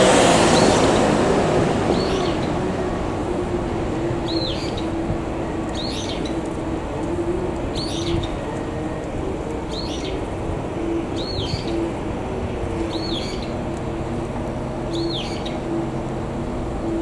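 A small diesel shunting locomotive idling with a steady low hum, after a louder rushing noise that fades over the first two seconds. Over it a bird repeats a short, high call about every two seconds.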